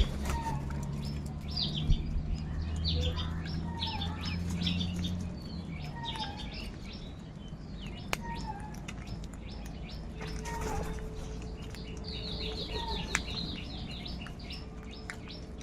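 Small birds chirping in a busy chorus of short, high chirps, with a fast run of chirps about twelve seconds in. A low steady hum sits underneath for the first six seconds.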